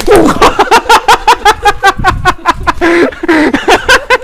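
A person laughing loudly and close to the microphone, in quick repeated bursts of voiced 'ha' sounds with a few pauses.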